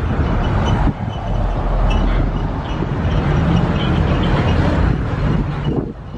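Motor vehicle engines running close by: a steady low rumble over dense street noise.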